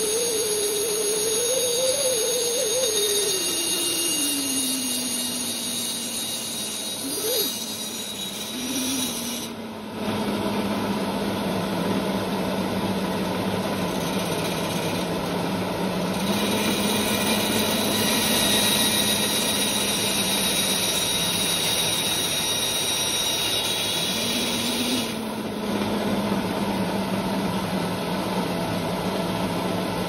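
Bandsaw running and cutting through a block of pine 2x4. It gives a humming tone that falls in pitch over the first few seconds, lifts briefly a few times, then holds steady over the hiss of the blade in the wood.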